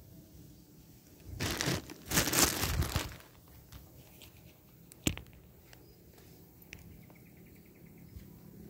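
Dry leaves and brush rustling and crunching in two loud bursts about one and a half to three seconds in, followed by a single sharp click about five seconds in.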